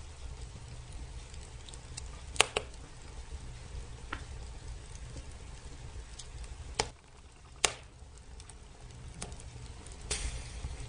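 Wood fire burning in a fireplace, crackling, with a few sharp pops from the logs over a low steady rumble.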